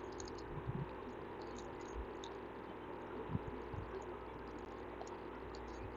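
Low, steady microphone hiss and hum, with faint ticks and a few soft low thuds from a stylus writing on a pen tablet.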